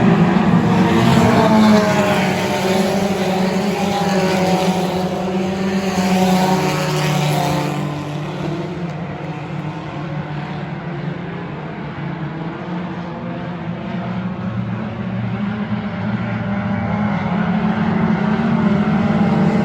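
Hornet-class four-cylinder race cars running laps on a dirt oval. Their engines fade about halfway through and grow louder again toward the end as the cars come back around.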